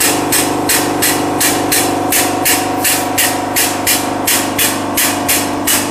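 Air-operated diaphragm pump cycling while it pumps cold waste motor oil, an even chugging of about three sharp air-exhaust strokes a second over a steady machine hum.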